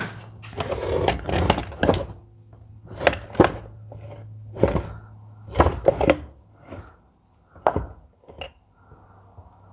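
Irregular knocks, clunks and clinks of hand tools and metal injection-pump parts being handled and set down on a workbench. They come in short clusters of sharp hits, with a steady low hum underneath.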